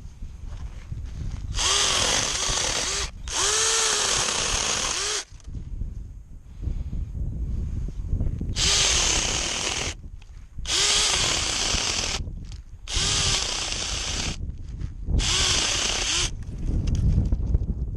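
Cordless mini chainsaw's electric motor triggered in short runs of a second or two, about six times, its whine rising and then sagging as the chain bites into tree branches.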